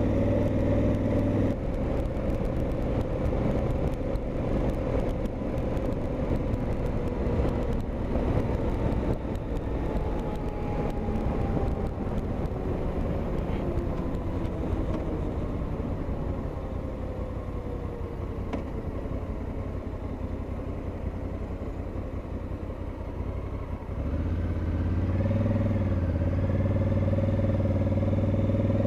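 Parallel-twin motorcycle engine running under way, with a steady rush of wind noise. Its note slides slowly lower through the middle as the bike eases off. About three-quarters of the way through, the engine sound changes and gets louder, with a brief wobble in pitch.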